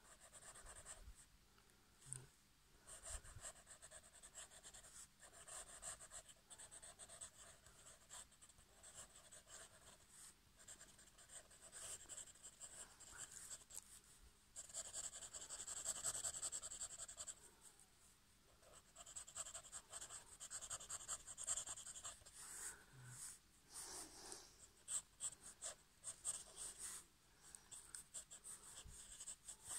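Pen nib scratching on paper in quick, scribbled hatching strokes, faint and coming in short runs, with a longer unbroken run of scribbling about halfway through.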